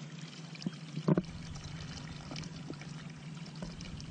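Water trickling and pouring steadily, with a short cluster of knocks or splashes about a second in.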